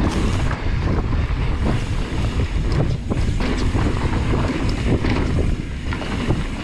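Wind rumbling on the microphone of a mountain bike riding fast down a dirt trail, with tyres rolling over dirt and frequent small rattles and knocks from the bike over bumps.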